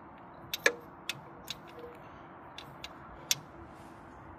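A few sharp clicks at uneven intervals, about seven in four seconds, the loudest about two-thirds of a second in.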